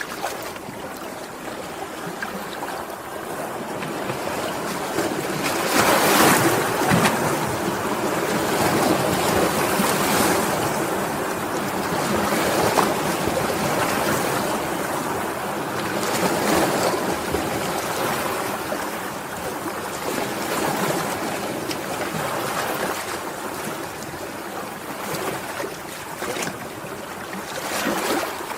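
Sea waves washing in, a steady rush that swells and falls back every few seconds, with the biggest surge about six seconds in.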